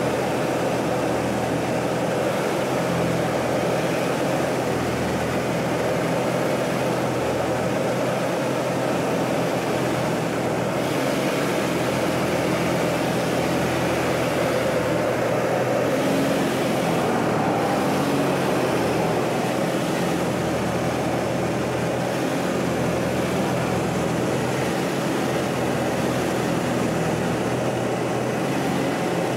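Pitts biplane's engine and propeller in flight, a steady loud drone heard from inside the open cockpit.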